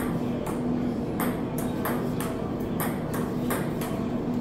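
Table tennis rally: the ball clicking off paddles and bouncing on a JOOLA table, a quick steady run of light knocks about three a second.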